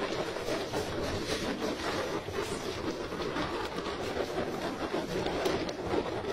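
Steady rumble and rush of a fishing boat under way at sea: engine drone mixed with water and wind noise, with faint clattering.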